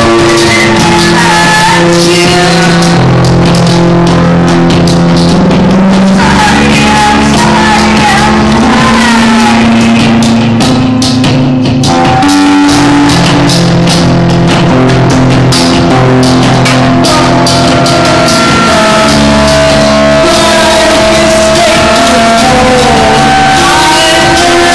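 Loud live music from an amplified acoustic guitar, with long held notes ringing over one another.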